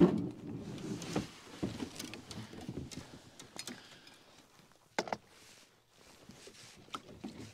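Plastic fishing kayak being launched down a grooved concrete boat ramp: the hull scrapes and bumps into the water, with irregular knocks and thuds. A loud thump at the start and a sharp knock about five seconds in.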